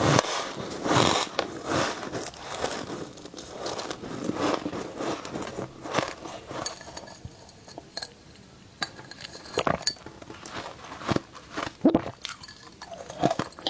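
Close-miked biting and chewing of soft frost: irregular crisp crunches with sharp clicks, thicker in the first few seconds and again near the end.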